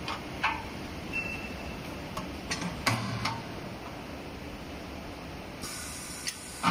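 Light metallic clinks and knocks as a steel bar is handled and set into the clamps of a four-sided beam welding machine, over a steady machine hum. Near the end a high hiss starts, with a sharp clunk right at the close.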